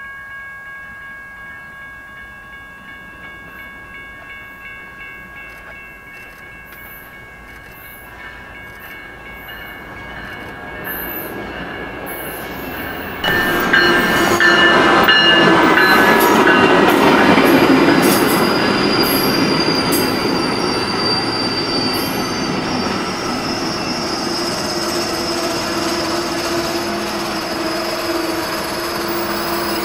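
An Amtrak Siemens SC-44 Charger diesel locomotive leads a passenger train past at speed, with a second SC-44 pushing at the rear. A faint steady chord of tones is heard as it approaches. About 13 s in, the noise jumps sharply as the locomotive goes by, then the coaches rumble and clatter past with some thin wheel squeal.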